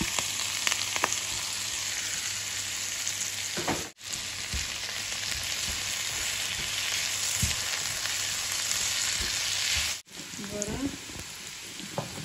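Sliced vegetables sizzling as they are stir-fried in a nonstick wok, with a spatula knocking and scraping as it tosses them. The sizzle cuts out abruptly twice, about 4 and 10 seconds in, and is quieter for the last two seconds.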